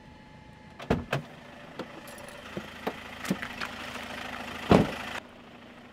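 A campervan's engine idling while someone steps out onto dry leaves, with a few short footstep knocks. A loud thud about five seconds in, the van door slamming, and the engine noise cuts off right after it.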